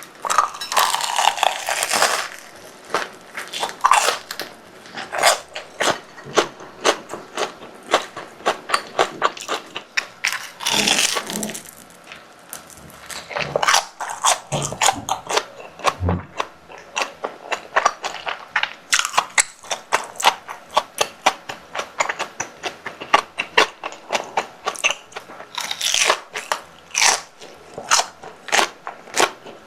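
Close-miked eating of a crispy fried croquette: a few loud bites into the crust, with quick crunchy chewing in between.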